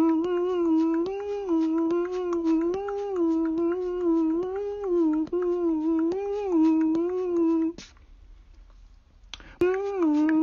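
A simple melody on one humming, voice-like tone with light ticks over it, breaking off for about two seconds near the end and then starting again.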